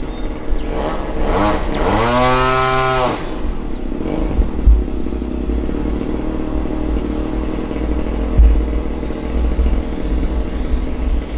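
Motor and propeller of an OMP Hobby Bighorn RC plane whining with a rising pitch, then holding for about a second before cutting off about three seconds in. A low wind rumble on the microphone follows, with two short bumps.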